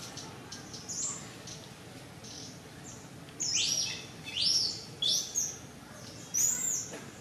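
A series of high-pitched animal calls: about five short squeals in the second half, each rising and then falling in pitch, with a few fainter ones earlier.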